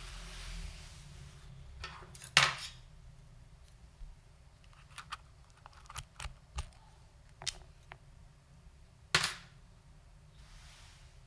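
Scattered single keystrokes on a GMMK Pro keyboard with lubed Tangerine linear switches, a polycarbonate plate and Cherry ABS doubleshot keycaps: a handful of sharp clacks a second or so apart, with two louder, longer knocks, one about two seconds in and one about nine seconds in.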